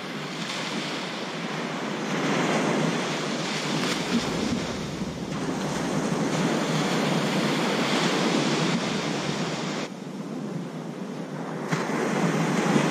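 Ocean surf washing onto the beach, a steady rushing that swells and eases and drops away briefly about ten seconds in before building again, with wind buffeting the microphone.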